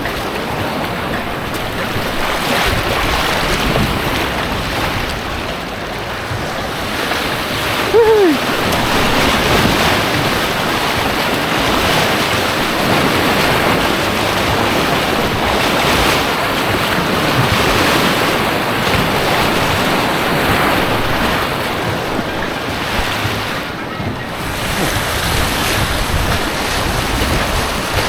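Rushing, churning white water of a man-made rapids course heard close up from a kayak, steady throughout. About eight seconds in there is a brief falling squeak.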